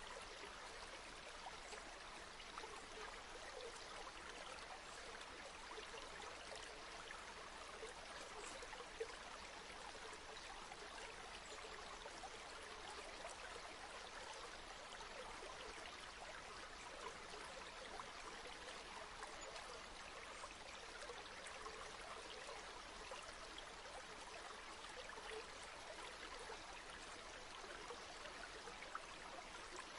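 River water flowing over stones, a steady rush with small trickles and splashes in it.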